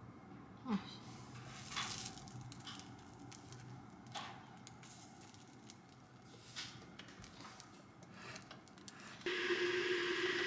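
Soft handling clicks as a buttered steamed bun is set on a hot waffle iron's plate. About nine seconds in, a steady sizzle starts as the iron is shut over the bun and turned.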